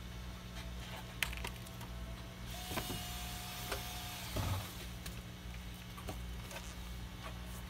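Repaired PS4 running on the bench with a low steady hum from its cooling fan and power supply. There is a single click about a second in and a thin steady tone for about a second and a half near the middle.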